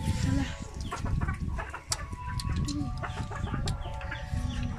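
Chickens clucking, over close chewing and handling noise as grilled field rat is bitten into.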